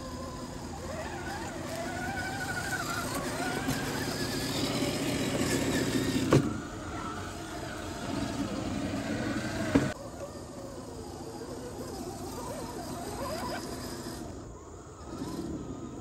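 Small electric motors and geared drivetrains of RC rock crawler trucks whining, the pitch rising and falling with the throttle as they crawl over dirt and roots. There are two sharp knocks, about six and ten seconds in.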